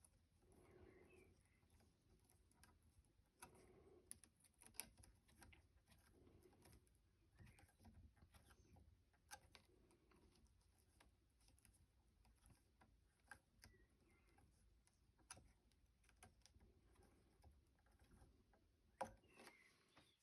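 Near silence with faint, scattered small clicks and taps from handling small parts, with one sharper tap a little before the end.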